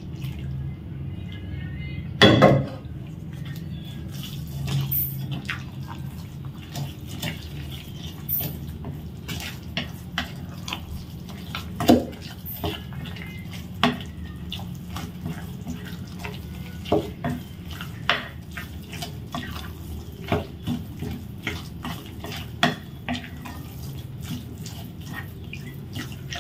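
Plastic paddle stirring and scraping a wet mix of grated cassava and palm sugar syrup in a glass bowl, with frequent small clicks and knocks against the bowl. A louder knock about two seconds in, over a steady low hum.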